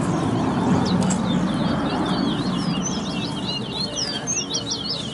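Caged towa-towa seed finches singing rapid runs of high chirps and whistled notes in a song competition, the notes coming thicker from about two seconds in, over a steady low murmur of background noise.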